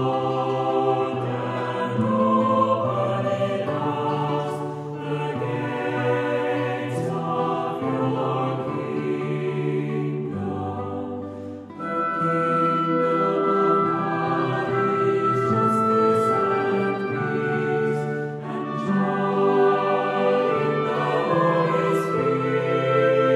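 Choral music: a choir singing slow, held chords with instrumental accompaniment, dipping briefly about halfway through before carrying on.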